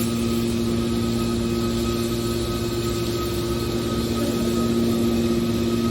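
Hydraulic scrap metal baler's power unit running: a steady mechanical hum with a constant whine, growing slightly louder near the end.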